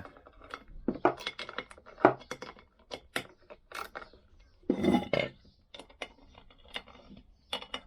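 Small socket and wrench clinking and knocking against a Lambretta rear hub as a new wheel stud is screwed in and tightened: a run of irregular metal clicks with short ringing.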